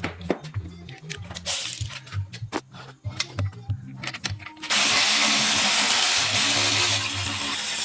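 Clicks and knocks of tools on metal, then a power tool runs for about three seconds from a little before the five-second mark.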